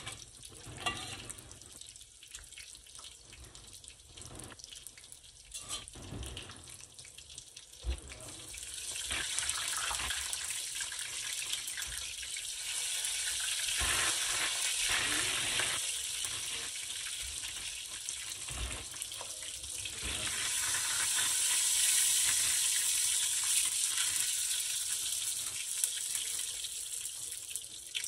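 Shrimp pastelitos sizzling in hot oil in a skillet. The hiss swells about a third of the way in and again later, with a few light utensil clicks in the first seconds.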